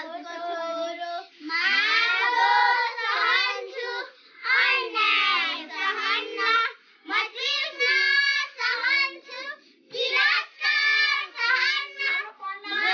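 A group of young schoolgirls singing a song together without accompaniment, in phrases of a second or two broken by short pauses.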